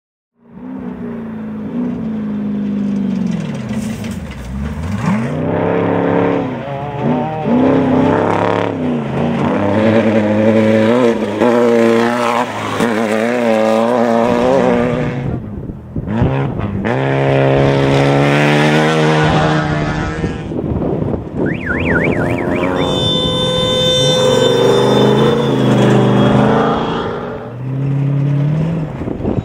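Off-road race truck engines revving hard and passing one after another, their pitch rising and falling as they accelerate and lift. In the last third there is a fast warbling tone and then a steady held tone with several pitches.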